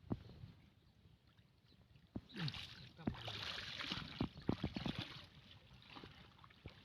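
Water splashing and sloshing in a pond, strongest in the middle, with a few sharp knocks and clicks, a quick run of them near the end of that stretch.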